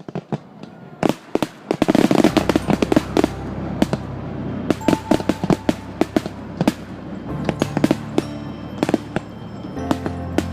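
Fireworks exploding in quick succession, with a dense volley of bangs about two seconds in and scattered bangs after that. Music plays underneath.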